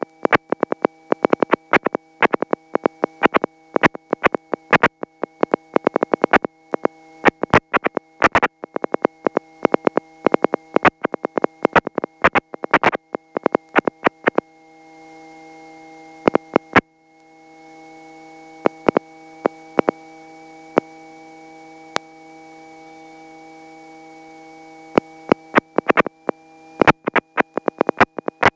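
Electrical interference on a headset intercom line: a steady hum of several fixed tones with a thin high whine, broken by rapid, irregular crackling clicks. The clicks mostly drop out for several seconds past the middle and come back thick near the end.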